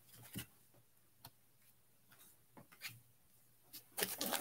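Faint, scattered ticks and light rustles of trading cards being handled and sorted by hand, getting louder near the end.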